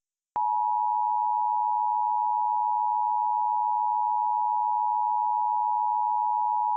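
Emergency Alert System two-tone attention signal, the 853 Hz and 960 Hz tones sounded together as one steady tone, starting about half a second in after a moment of silence. It is the alert tone that marks an EAS emergency message.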